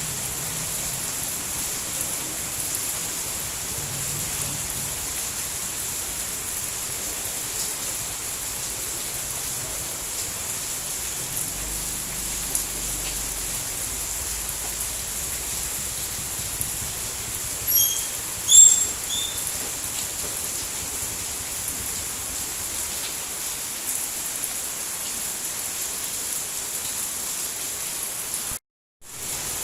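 Steady heavy rain, an even hiss of falling water. About two-thirds of the way in, a few short, high chirps stand out over it. Near the end the sound cuts out completely for about half a second, then returns.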